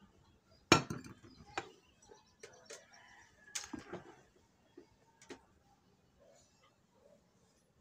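A handful of sharp knocks and clinks from a steel thermos and a plate being handled close to the microphone. The loudest comes about a second in, the others are scattered over the next few seconds, and it is quieter near the end.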